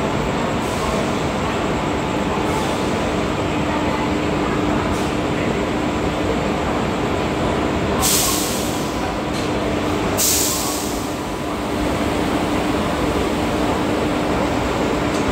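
Steady machinery drone of an idling WAP-4 electric locomotive standing at the train, with a steady hum. Twice, about eight and ten seconds in, a short blast of hissing air comes from the brake hoses at the coupling as the locomotive is attached.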